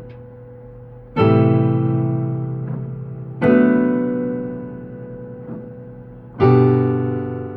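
Piano playing three slow chords, each struck and left to ring and fade: about a second in, at about three and a half seconds, and again near the end.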